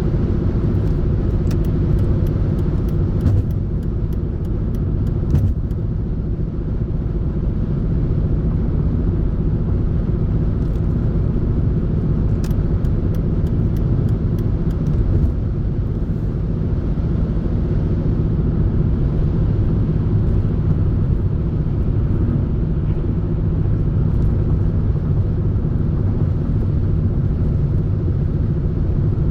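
Car running at a steady speed: a continuous low drone of engine and road noise, with a few faint ticks early and again midway.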